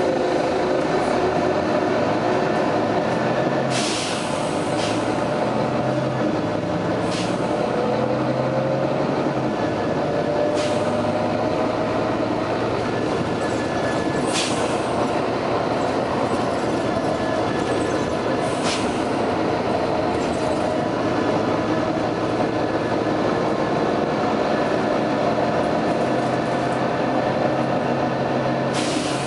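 Volvo B9TL double-decker diesel bus running, with a steady whine that slowly glides in pitch. Short, sharp air hisses from its air brakes and suspension come every few seconds, about six times.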